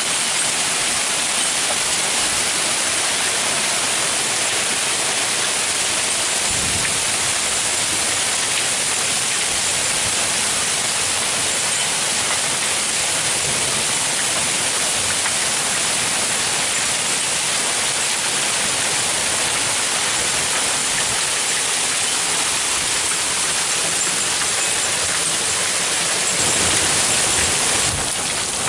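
Heavy hail falling with rain: a steady, dense hiss of hailstones hitting the street, swelling slightly near the end.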